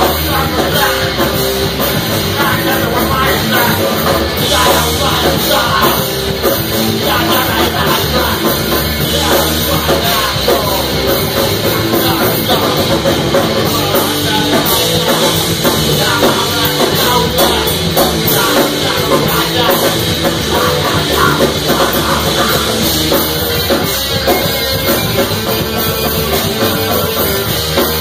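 Punk band playing live and loud: electric guitar, bass guitar and drum kit, with a singer's vocals.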